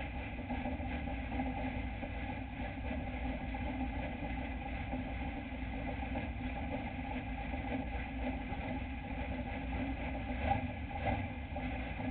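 Dirt-track race truck's engine idling steadily, heard from inside the cab.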